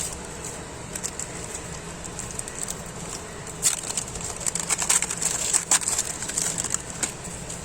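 Foil trading-card packet crinkling and tearing as it is opened, with a run of sharp crackles and rustles in the middle.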